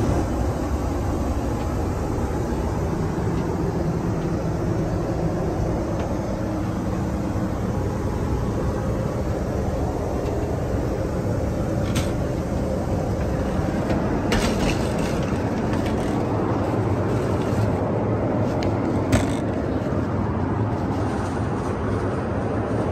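Steady cabin noise of a Boeing 737 MAX 8 in flight, a low rushing drone. About twelve seconds in the lavatory door lock clicks as it is slid open. A few more clicks and a sharp knock follow later.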